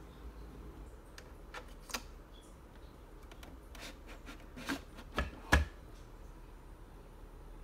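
Hard plastic clicks and clacks of a Nespresso capsule machine being handled as a capsule is loaded, the lever worked by hand; a handful of scattered clicks, with the loudest clack about five and a half seconds in.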